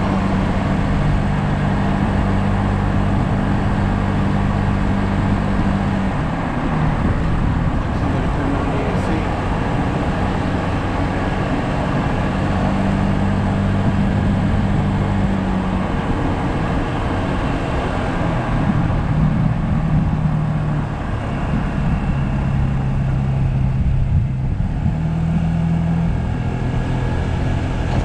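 Yamaha SMax's 155 cc single-cylinder scooter engine running under way, with a steady rush of wind and road noise. Its hum holds a steady pitch for stretches and steps down and up a few times as engine speed changes.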